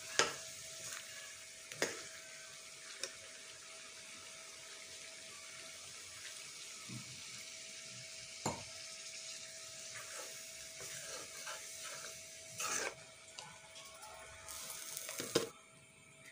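Chicken curry sizzling steadily in a frying pan, with a steel ladle stirring and knocking against the pan every few seconds. Near the end a glass lid goes on and the sizzle drops away.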